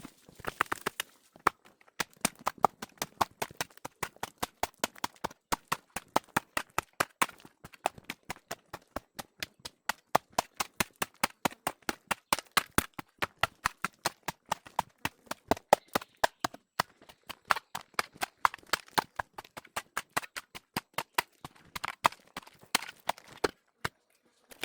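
Hand tool striking repeatedly in quick succession, about three to four sharp knocks a second with only brief pauses, as in hacking or digging work.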